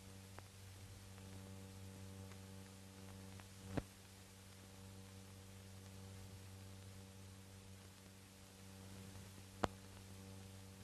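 Low steady hum with faint hiss from an old film soundtrack, broken by two sharp clicks, one about four seconds in and one near the end.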